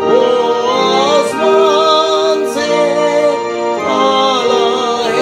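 Hymn singing with instrumental accompaniment: long held notes that waver slightly in pitch over steady sustained chords, moving to a new note about every second.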